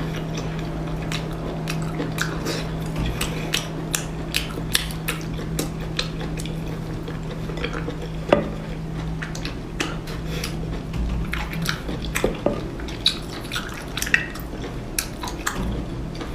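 Utensils clicking and clinking against dishes in many sharp, irregular taps while seafood is handled at the table, over a steady low hum that stops about twelve seconds in.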